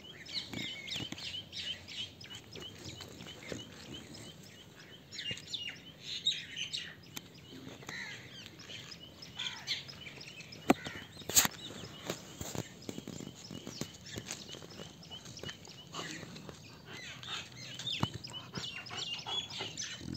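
Small birds chirping in the background, with a quick run of repeated chirps at the start. Two sharp clicks about halfway through are the loudest sounds.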